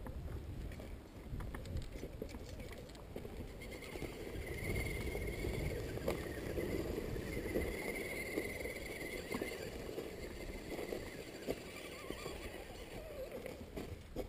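Wind rumble and handling noise on a hand-held action camera, with scattered clicks and crunches of tyres or footsteps on rock. The RC rock crawler's electric motor whines faintly twice as it crawls.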